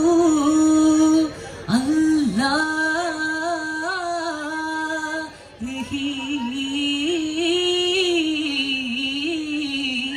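A single voice sings a slow duffmuttu song unaccompanied, with no daf drumming, holding long notes with wavering ornaments and pausing briefly for breath twice.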